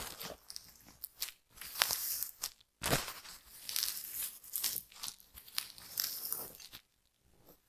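Close-miked scratching and rustling in hair and on the scalp during an anti-dandruff treatment: irregular crisp scratches with a couple of sharp clicks, dying away near the end.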